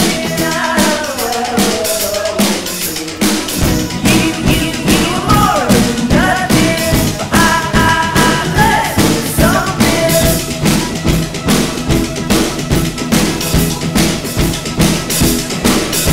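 Indie rock music with a full drum kit. Bass and kick drum come in about three and a half seconds in, and from then on the drums keep a fast, steady beat under pitched melodic lines.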